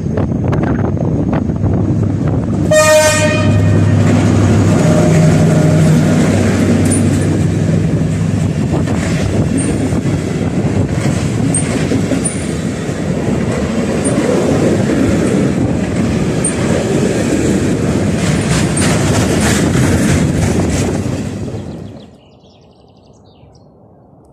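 Diesel locomotive giving a short horn blast in greeting about three seconds in as it passes hauling a freight train of tank wagons. The engine's drone passes, then the wagons rumble and clatter along the rails with occasional brief squeals, until the sound stops suddenly near the end.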